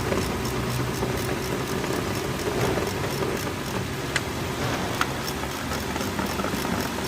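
Lexus 430's 4.3-litre V8 idling steadily after starting on a used replacement starter motor, with a fast, even, light ticking over the hum and two sharp clicks about four and five seconds in.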